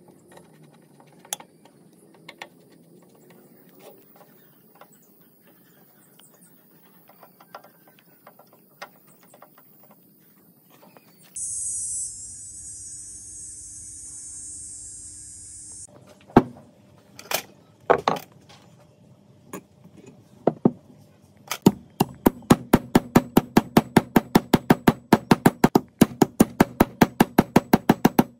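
Hand work on metal tools: scattered light clicks, then a hiss lasting about four seconds, a few single knocks, and near the end a fast, even run of sharp knocks, about five a second.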